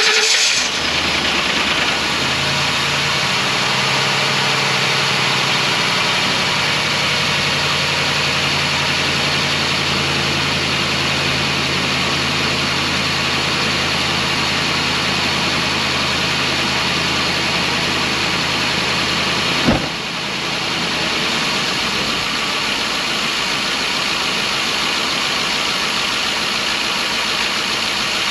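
2012 Ford E350 van's gasoline engine idling steadily just after starting, its first run after an intake manifold replacement to cure a coolant leak and misfire. About twenty seconds in there is a brief sharp noise, after which the idle settles a little quieter and lower.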